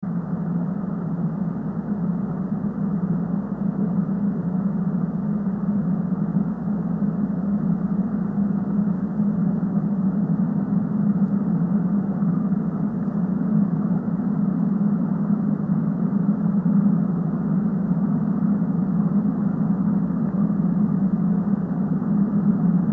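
A steady low rumbling drone, muffled, with no beat and no change in pitch.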